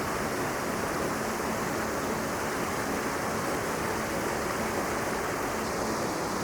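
Mountain river rushing past, a steady even hiss of flowing water.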